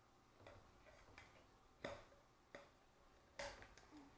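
Faint, scattered clicks and taps from a thin wooden stick working inside a small plastic slime container to scrape the slime out, about five in all, the loudest about two seconds in and near the end.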